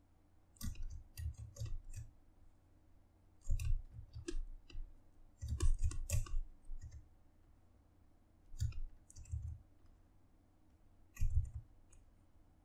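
Five short bursts of clicking, each with a light low thud, from hand work at a computer desk while the stitch line is being sculpted.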